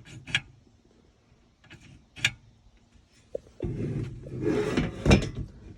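A few light metal clicks of window-lock hardware being handled. Then, from about three and a half seconds in, a longer rough scraping slide that ends in a sharp knock just past five seconds: the sliding window moving along its channel and coming up against the lock.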